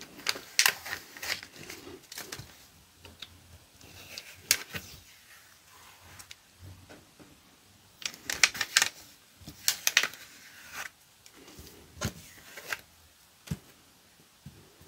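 Cut heat transfer vinyl being weeded: the excess peeled up off its carrier sheet in irregular spurts of crackling and ticking, with the sheet rustling as it is handled.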